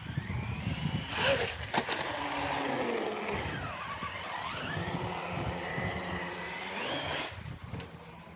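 Traxxas Sledge RC monster truck's brushless electric motor whining, its pitch rising and falling as it speeds up and slows. Two sharp knocks about a second and a half in, from the truck striking the concrete.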